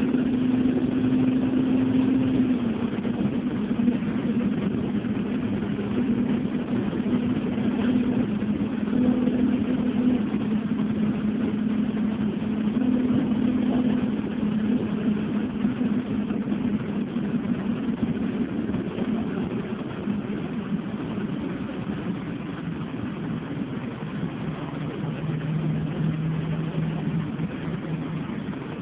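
Engine hum and road noise heard from inside a moving vehicle. The engine's pitch steps down a few times and sinks lower over the last several seconds as the sound eases off a little.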